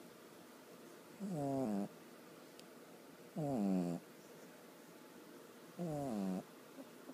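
Pug snoring in its sleep: three snores about two and a half seconds apart, each a short, pitched, rattling sound that falls in pitch.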